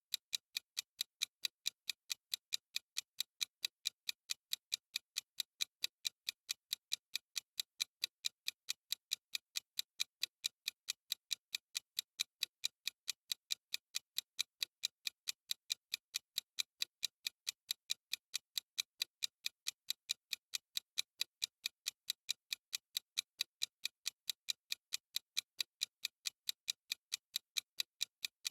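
Clock-style ticking sound effect of a countdown timer: sharp, high clicks at an even pace of about three a second, without a break.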